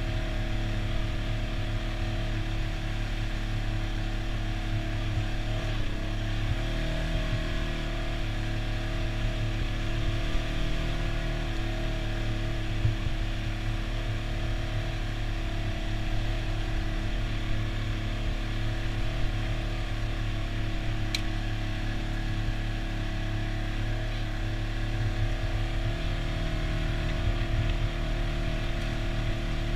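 Side-by-side UTV engine running at a steady cruising speed while driving along a dirt trail, heard from inside the open cab. The engine note shifts slightly a few times. A single brief sharp click comes about two-thirds of the way through.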